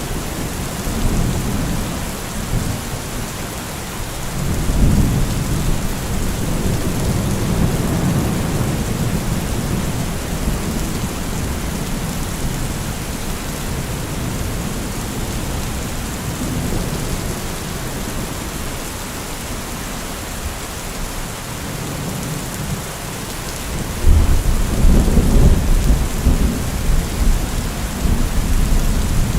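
Steady heavy rain with rolling thunder. Low rumbles swell and fade in the first third, and about five seconds before the end a sudden loud thunderclap breaks in and keeps rumbling.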